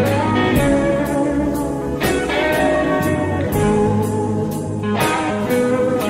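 Background music: the instrumental break of a blues-rock song, guitar over a steady beat, with no singing.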